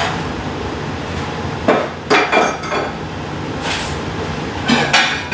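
Metal kitchen clatter: a stainless steel mixing bowl and metal tongs clinking and knocking against the counter and dishes, in a few short clusters of sharp clinks, a little under two seconds in, around two to three seconds, and again near the end.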